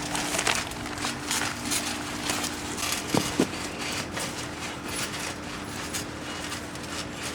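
Children playing on a trampoline: uneven soft thumps and rustling, with a faint steady hum underneath and a brief squeak about three seconds in.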